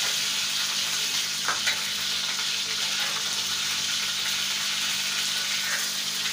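Chicken pieces sizzling in ghee in a wide black pan over a gas flame: a steady frying hiss, with a couple of light knocks about a second and a half in.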